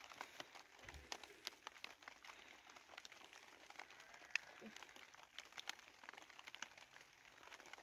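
Near silence: quiet room tone with faint, scattered light ticks.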